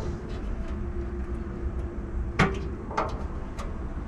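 Hand tools and metal parts clicking and knocking a few times, the loudest about two and a half seconds in, over a low steady rumble.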